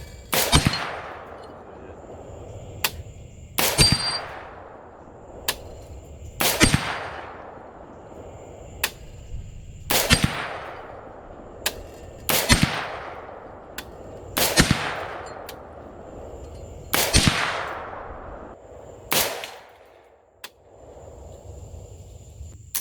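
AR-15 in .223 fired slowly at steel targets, about eight shots two to three seconds apart, with fainter sharp cracks between shots. The shooting stops a few seconds before the end.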